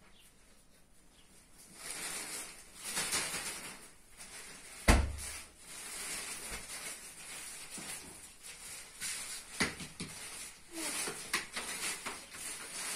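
A plastic bag rustling as it is handled and opened, starting about two seconds in, with one sharp thump about five seconds in that is the loudest sound.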